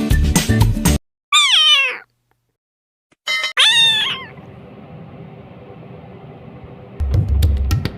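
A kitten meowing: a high-pitched meow falling in pitch, then after a short pause a brief call followed by a second falling meow. Music plays at the start and comes back near the end.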